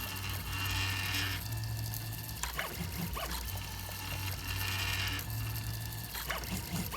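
Filament 3D printer running a print: its stepper motors whine in tones that switch on and off and change as the print head moves, over a steady low hum.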